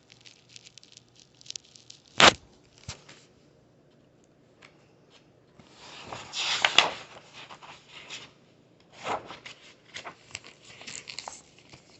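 Paper rustling and handling of a picture book's pages, with scattered small clicks, one sharp click about two seconds in, and a louder rustle around six to seven seconds.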